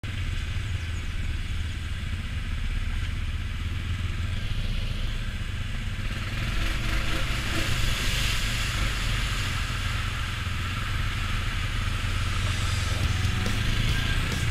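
ATV engine running steadily at low speed, with a hiss of water splashing up from the tyres as it drives through a flooded, muddy trail. The splashing grows louder about six seconds in.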